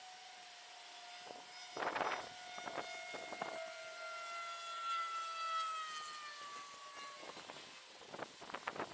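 A siren sounding in the background, its pitch slowly falling over several seconds. Short scratchy strokes of a wire brush scrubbing a metal casting come a couple of seconds in and again near the end.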